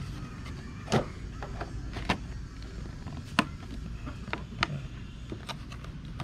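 Thin clear plastic dome lids of 12-cell seedling trays being handled and fitted onto the trays: a string of sharp plastic clicks and crackles, the loudest about three and a half seconds in.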